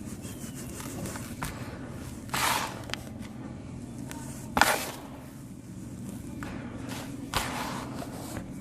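Lumps of dried sand cement being crushed and crumbling in three gritty crunches, the middle one the loudest, with a few small clicks between them.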